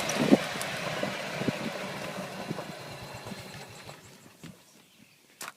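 Golf cart running and dying away over about four seconds as it comes to a stop, then a single sharp click near the end.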